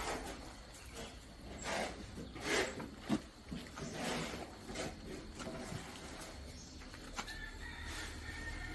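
Goats moving about: irregular rustling and shuffling noises, with a sharp knock about three seconds in.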